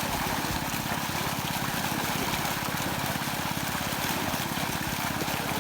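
A small engine running steadily with an even, rapid firing beat, under a constant wash of running water.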